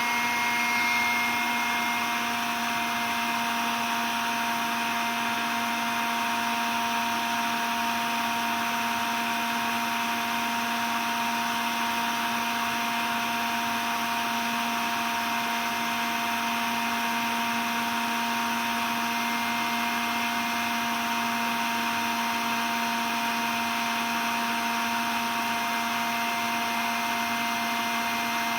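Cordless vacuum cleaner running steadily: an even rush of air with a constant motor whine. Its highest tone fades out about two seconds in, and the sound settles a little quieter.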